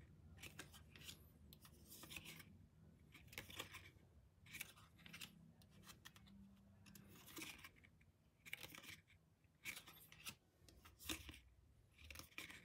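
Photo cards being slid off a stack one at a time and laid down, each giving a faint, brief scrape or swish, roughly one a second.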